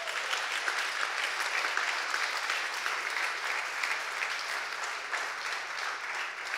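Congregation applauding: dense, steady clapping that begins to thin and fade near the end.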